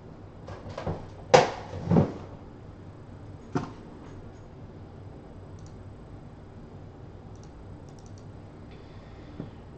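Handling noise at a desk: a few knocks and clicks in the first two seconds, the two loudest close together about a second and a half in, one more knock a little later, then low room tone with a few faint ticks.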